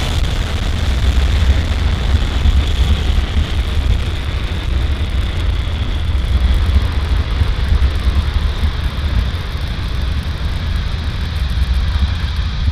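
Falcon 9 rocket's first stage, its nine Merlin engines firing during ascent: a loud, steady low rumble of engine noise.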